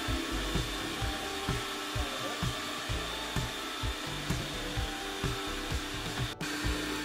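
Electric food processor motor running steadily while it blends raw prawns with lime leaves and oil, with irregular low thumps from the bowl. The sound drops out for an instant about six seconds in.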